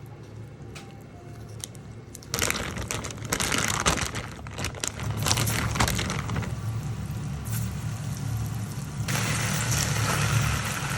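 Kitchen food-preparation handling sounds: crinkling and crackling with sharp clicks starting about two seconds in, then a steadier hiss from about nine seconds in.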